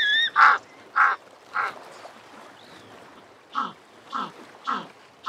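African penguin calling in a series of short braying notes, repeated about every 0.6 s. Three come first, then a pause of about two seconds, then three or four more. A brief, higher, wavering note sounds right at the start.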